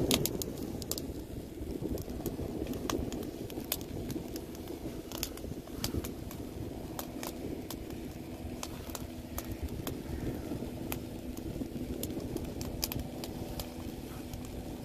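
Wood fire crackling, with scattered sharp pops at irregular intervals over a steady low rumble.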